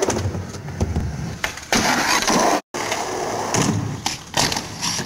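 Skateboard wheels rolling on concrete with a low rumble and a few sharp clacks of the board. The sound drops out completely for a moment about halfway through.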